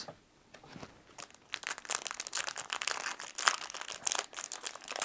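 Crinkling and rustling of a foil trading-card booster pack wrapper being handled, a dense run of irregular crackles that starts about a second and a half in.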